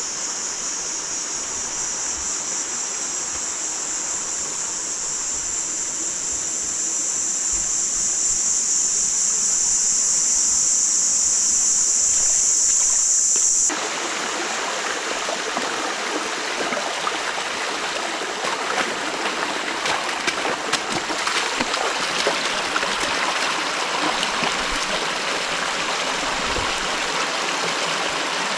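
Rushing river water with a steady, high-pitched insect buzz over it that grows louder and then cuts off abruptly about halfway through. After that the river's rush is fuller, with small splashes.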